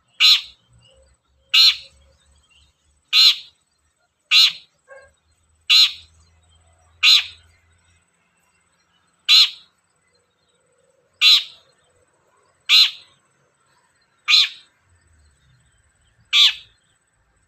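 Long-tailed shrike (cendet) giving a short, harsh call that sweeps down in pitch, repeated eleven times at roughly one-and-a-half-second intervals.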